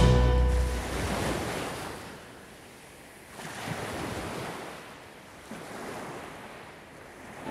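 Ocean surf: waves breaking and washing up the shore, rising in a swell about three seconds in and again about five and a half seconds in.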